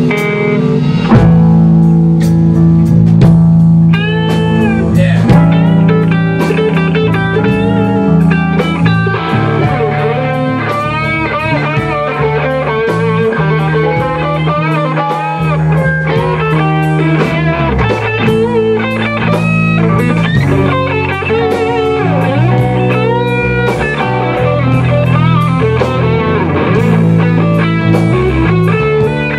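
A rock band playing live: an electric guitar lead full of bent notes over bass, drums and rhythm guitar, in a bluesy rock style.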